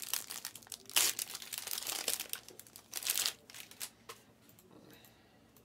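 Foil trading card pack wrapper crinkling and tearing as it is ripped open, a run of short crackling bursts over the first three and a half seconds, then only faint rustling of the cards being handled.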